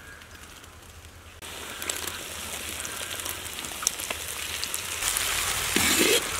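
Sliced tomatoes and onions sizzling in hot oil in a large iron kadai. The sizzle starts about a second and a half in and grows louder, and near the end a perforated steel spatula scrapes and stirs against the pan.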